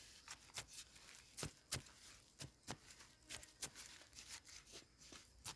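Clay soil being dug and scooped out by hand around wild yam roots: a dozen or so faint, irregular scrapes and crumbling clicks of clods and dry roots.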